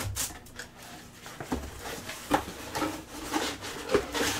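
Packaging being handled during an unboxing: scattered rustles, light taps and knocks of cardboard and plastic.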